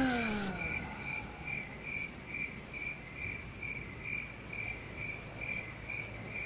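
Cricket chirping steadily, a little over two chirps a second. A falling tone sounds at the start.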